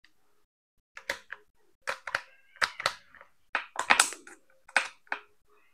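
Sharp plastic clicks and knocks, about a dozen over four seconds, as a Hukan 6900 cordless angle grinder is handled and tried, with no motor running. The grinder will not start, which the seller takes for a small malfunction.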